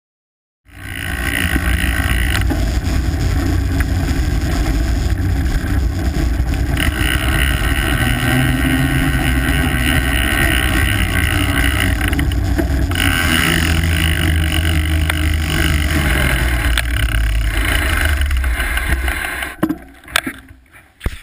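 Wind buffeting a fat bike's handlebar-mounted camera microphone, with the rolling noise of fat tyres on pavement, starting just after a brief silence. Near the end it falls away as the bike slows to a stop, leaving a few sharp clicks.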